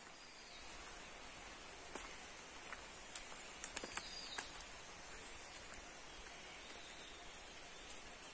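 Footsteps crunching and crackling on dry leaf litter, with a cluster of sharper crackles from about three to four and a half seconds in, over faint forest ambience with a steady high-pitched hum.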